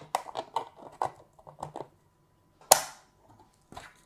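3D-printed plastic holder parts being handled and pressed together: a run of small clicks and rattles, a short pause, then one sharp snap about two-thirds of the way through, followed by a few faint knocks.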